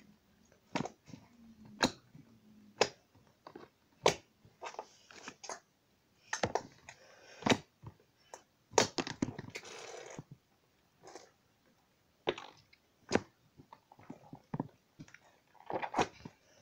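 Large slime being kneaded and pressed by hand in a plastic tub, giving irregular sharp pops and squelches about once a second, with a longer crackling squish about nine seconds in.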